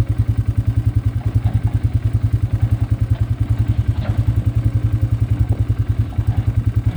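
A small vehicle engine running at a steady low speed, with an even, rapid chugging of about ten beats a second and a little rattle over it.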